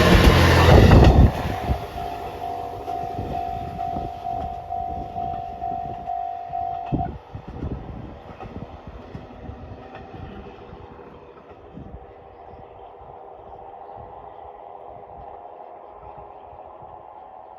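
A diesel train passes a level crossing close by, loudest in the first second, then runs away with its wheels clicking over the rail joints as it fades. The crossing's warning bell rings with an even, repeating tone until it stops about seven seconds in.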